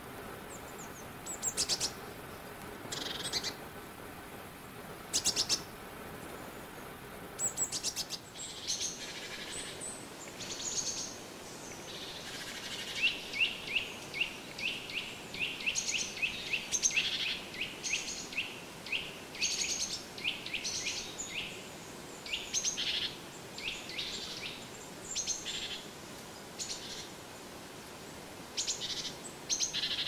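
Small songbirds calling: scattered short, high chirps, and about halfway through a quick run of rapidly repeated notes lasting a few seconds.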